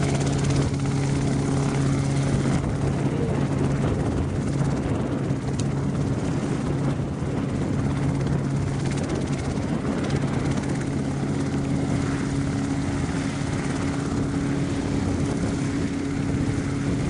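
RotorWay Exec 162F kit helicopter running close by: its flat-four piston engine and main rotor make a steady hum over a rushing wash of rotor noise while it hovers low and sets down.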